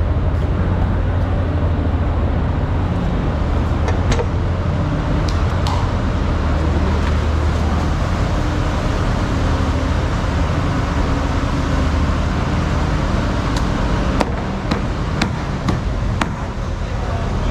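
A steady low mechanical drone with a noisy background haze. A few short, sharp clicks and knocks sound over it, several close together near the end.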